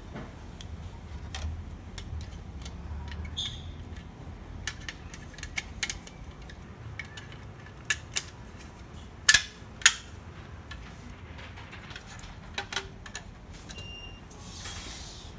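Scattered plastic clicks and knocks from handling the printer's laser scanner unit and setting it into the plastic printer frame, with two sharper knocks about nine and ten seconds in and a short rustling scrape near the end.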